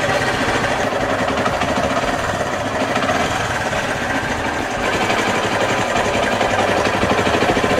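TVS Sport motorcycle's single-cylinder four-stroke engine idling steadily, a little louder from about five seconds in.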